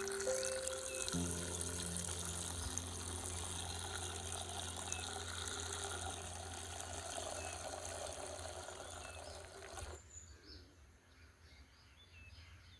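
Water running, a steady rush that cuts off suddenly about ten seconds in.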